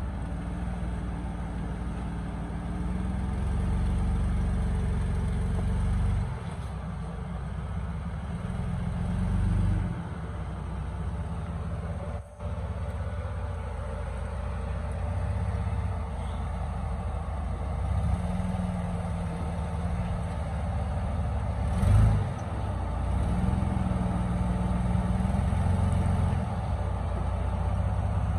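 Lifted Toyota 4Runner's engine working at low revs as it crawls over boulders, revving up and easing off several times. There is a short louder surge about two-thirds of the way through.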